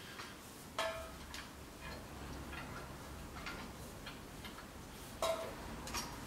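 Light metallic clicks and taps of exhaust pipes and their slip-on collars being fitted together by hand, with two louder ringing clinks, about a second in and again near the end.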